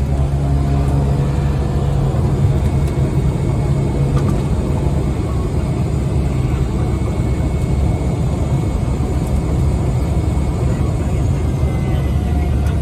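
Small propeller aircraft's engine running steadily, a loud low drone heard from inside the passenger cabin.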